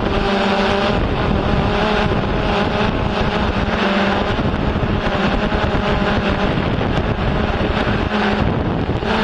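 Multirotor drone's motors and propellers humming steadily, with wind buffeting the microphone; the hum's pitch shifts slightly a few times.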